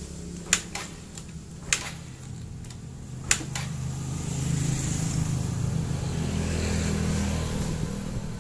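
Yamaha Mio Sporty scooter's kick-starter kicked over several times, with three sharp clacks in the first few seconds and the engine turning over without catching. It is a no-start that the mechanic traces to valve clearance closed up too tight, with ignition spark present. A steady low hum runs underneath.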